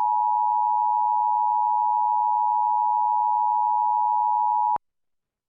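Emergency Alert System attention signal on a TV broadcast: a steady two-tone alarm (853 and 960 Hz sounded together) that cuts off suddenly after nearly five seconds, signalling an incoming flash flood warning.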